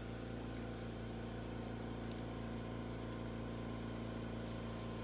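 Steady low machine hum with light hiss, unchanging, with a couple of faint clicks.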